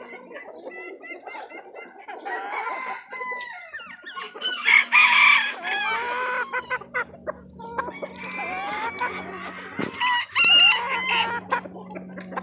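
Chickens: roosters crowing over hens clucking. The two loudest crows come about five seconds in and again near the end.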